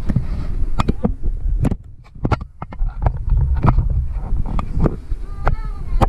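Handling noise from a phone being swung and gripped: a rough low rumble on the microphone with irregular knocks and clicks, and a brief wavering high-pitched sound about five and a half seconds in.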